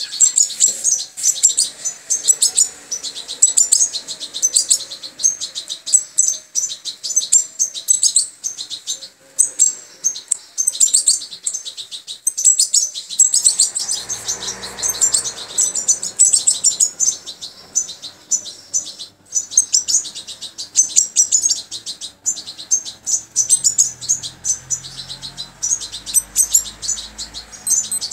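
Young European goldfinches begging for food with rapid, high-pitched chirping, non-stop, while being hand-fed.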